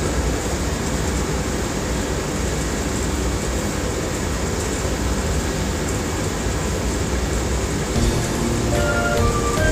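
A steady rushing noise with no clear pitch. About eight seconds in, the karaoke backing track starts with a melody of held notes.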